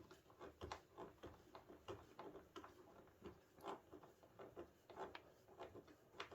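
Faint, irregular clicks and ticks of a self-tapping screw being driven by hand with a screwdriver into the slider, about two or three a second.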